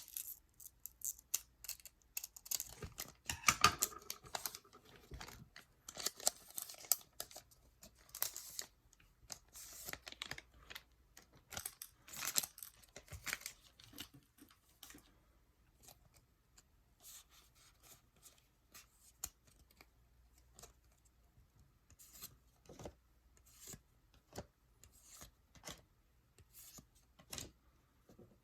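Foil trading-card booster pack torn open and crinkled, the louder tearing and crinkling in the first half, then the cards being handled with a run of short light clicks and rustles.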